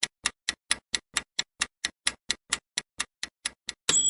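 Countdown timer sound effect: fast, even clock ticking at about four to five ticks a second, ending near the end with a ringing ding as time runs out.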